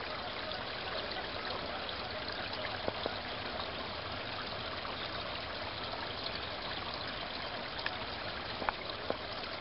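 Creek water flowing steadily, with a few faint clicks.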